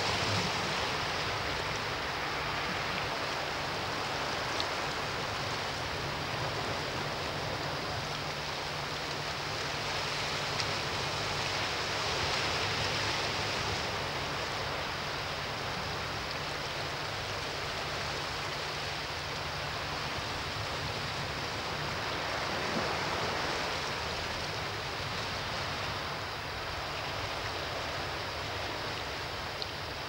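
Sea surf washing on a rocky shore: a continuous even hiss of moving water that swells a little twice, a little under halfway through and again about three quarters of the way in.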